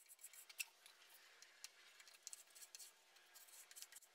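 Faint, quick, irregular strokes of a small hand plane taking thin shavings off a small wooden drawer to fit it.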